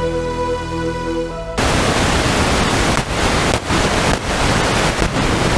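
Ambient music with long held tones, cut off about one and a half seconds in by loud, even hiss from an Eton Grundig Executive Satellit receiver tuned to an empty spot on the FM band. The hiss dips briefly four times as the dial is stepped up the band.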